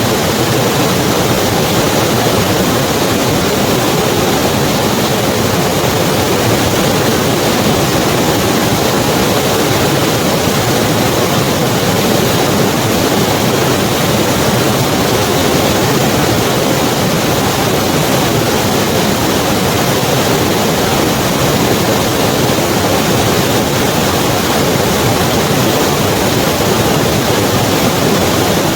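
Snow-melt river rushing over rocks: a loud, steady rush of water without change.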